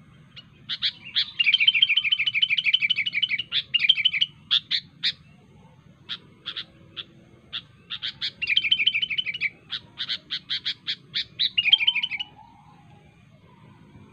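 Sooty-headed bulbul (kutilang) singing: two spells of loud, sharp chirps, each holding a fast chattering trill, with a short gap of single chirps between them.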